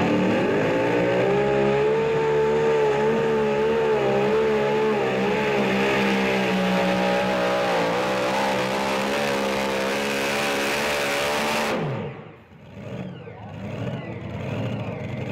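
Two-wheel-drive pulling truck's engine at full throttle under load, pulling the sled. It is held at high revs with a slightly wavering pitch. About twelve seconds in the throttle is chopped at the end of a full pull, and the engine note falls away quickly.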